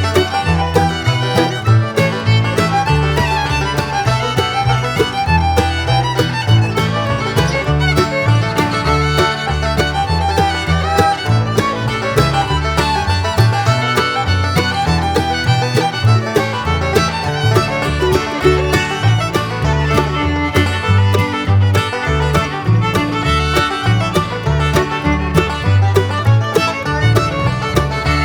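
Background bluegrass music with fiddle over a steady beat, with guitar and banjo.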